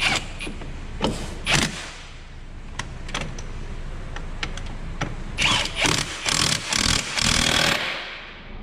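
Tool noise on a car's front brake and hub assembly: a few sharp metal knocks in the first second and a half, then a run of short noisy bursts through the second half, over a steady low hum.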